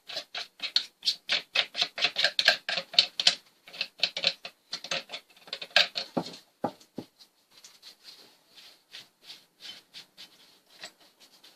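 Rapid scratching strokes, about four or five a second, as oily, caked debris is scrubbed and scraped out of chainsaw parts. The strokes are louder for the first half. A few knocks come about six to seven seconds in, then fainter, sparser scratching.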